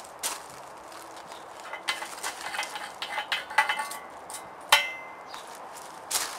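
Light clicks and taps of metal parts on a British Seagull outboard being handled, with one sharp, ringing metal clink about five seconds in.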